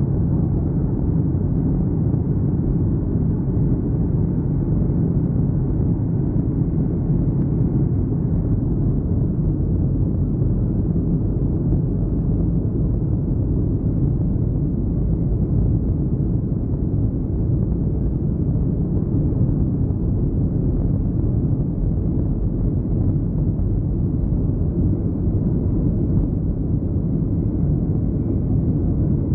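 Jet airliner's engines and wheels heard from inside the passenger cabin during the takeoff roll: a steady, loud low rumble.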